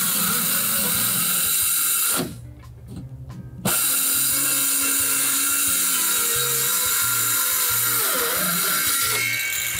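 Ryobi cordless circular saw running and cutting through a plywood sheet, a steady high-pitched blade noise. It breaks off for about a second and a half about two seconds in, then carries on through the cut.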